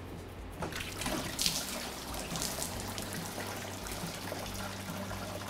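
Engine coolant pouring from the radiator's lower hose outlet into a drain pan as the hose comes off, starting about half a second in and running on steadily.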